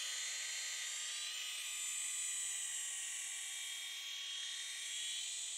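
Small RC helicopter hovering: a steady, high-pitched whine from its motor and rotor, with a slight waver in pitch.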